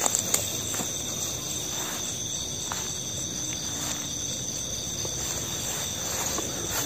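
Crickets and other night insects calling steadily in high, unbroken tones, over a low rustling haze, with a few sharp clicks just after the start.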